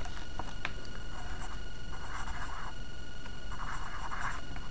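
Pencil scratching on paper in a few short stretches of strokes as letters are written by hand.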